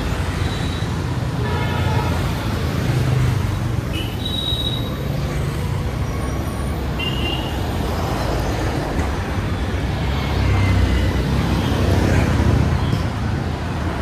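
Road traffic: a steady rumble of passing vehicle engines, with a few short horn toots.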